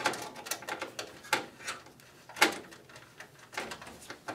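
Irregular sharp clicks and knocks of a screwdriver and small screws driving a motherboard into a computer case's mounting standoffs, about six in a few seconds.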